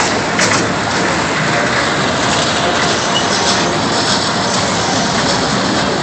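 Steady, even running noise of a kiddie train ride going around its track loop.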